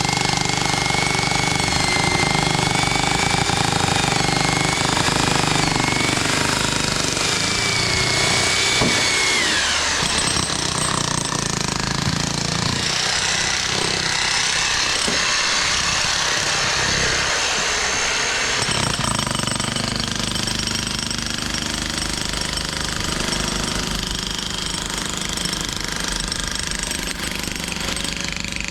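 Loud, continuous construction machinery noise with a dense rattle, under a high whine that wavers and then falls away about ten seconds in.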